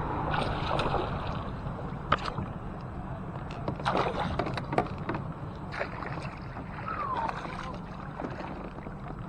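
Sounds of a fishing kayak on the water: a steady wash of water and wind noise, broken by a few sharp clicks and knocks on the boat.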